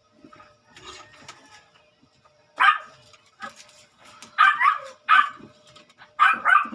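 A dog barking several times in short, loud barks, the last two in quick succession near the end.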